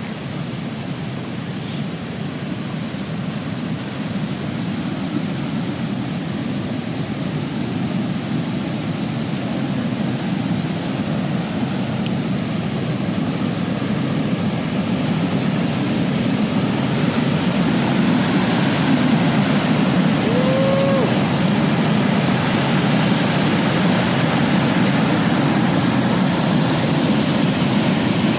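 Rushing water of a rain-swollen river and waterfall, a steady noise that grows steadily louder.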